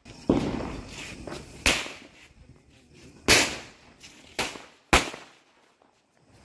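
Small chilli-type firecrackers (mirchi patakhe) going off one after another: five sharp bangs in about five seconds, unevenly spaced, each with a short echoing tail.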